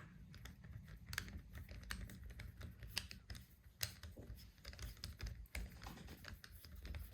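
Faint, irregular small clicks and taps from small screws and a screwdriver being handled against a laptop's screen housing as the screws go in.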